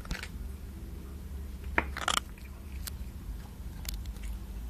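Cat crunching its food: a few sharp, irregular crunches, the loudest cluster about two seconds in, over a low steady hum.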